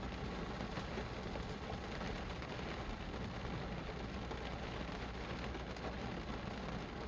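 Steady rain falling: a dense, even hiss with many small drop ticks, over a constant low rumble.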